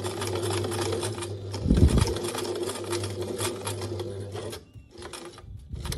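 Domestic sewing machine running steadily, stitching through the tote bag fabric and the layered strap, with a dull low thump about two seconds in. The machine stops about four and a half seconds in, followed by a few light clicks.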